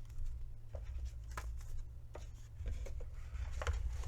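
Tarot cards being handled: a few light taps and rustles of card stock, over a low steady room rumble.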